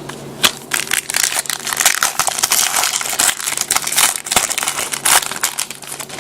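A trading card pack's wrapper being torn open and crumpled by hand: dense, irregular crinkling and crackling for about five seconds.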